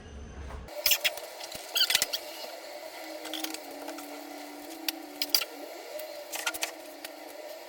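A run of sharp, irregular clicks and clacks, the loudest a few quick ones about one and two seconds in, with a faint steady hum underneath.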